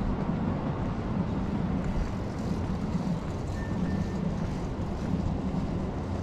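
Steady street traffic noise mixed with the low rumble of wind on the microphone, with a faint, brief high tone about three and a half seconds in.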